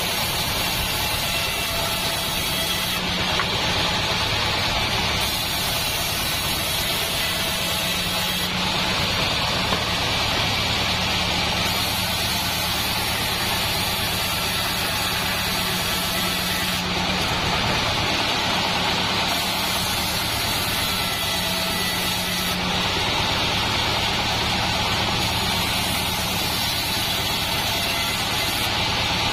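Assembled bandsaw mill running steadily: a continuous machine drone from its drive, with the band blade sawing through a salam wood beam.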